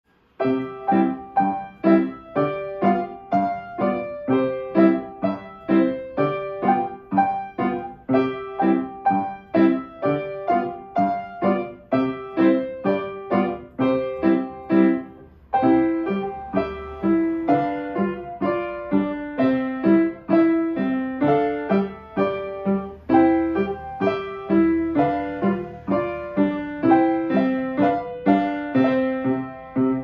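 Kawai grand piano played in a lively, evenly pulsed piece, notes struck in a steady rhythm with a brief break about halfway through.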